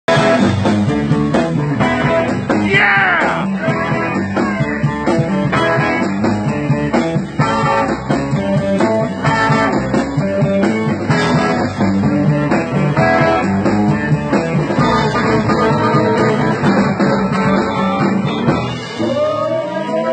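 Live blues band playing, with guitar over bass and drums; notes glide in pitch about three seconds in and again near the end.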